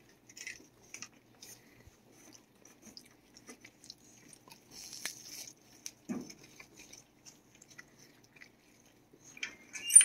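A cat chewing and crunching a treat, with faint irregular small crunching clicks and one duller knock about six seconds in.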